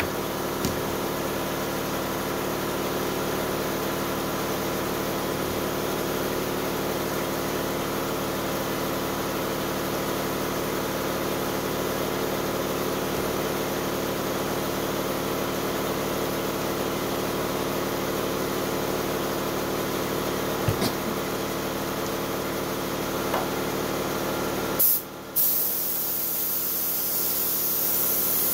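A steady mechanical hum with a few faint clicks. Near the end a gravity-feed spray gun starts hissing loudly as it sprays liquid mask onto a clear RC car body, breaking off briefly just after it starts and then running on.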